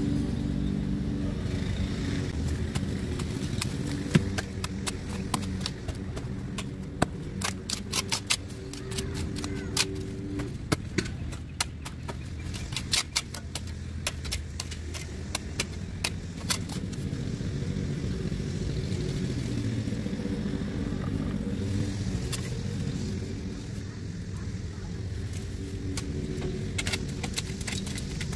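A steady engine hum, with a run of sharp clicks and knocks through the middle.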